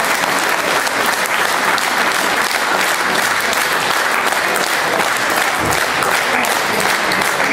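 Audience applauding, a dense, steady clapping from many hands.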